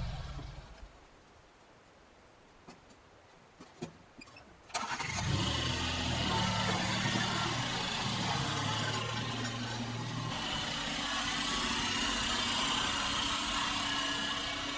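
Yanmar B22 mini excavator's diesel engine winding down and stopping, then a few seconds of quiet broken by a few light clicks. The engine starts again suddenly about five seconds in and runs steadily.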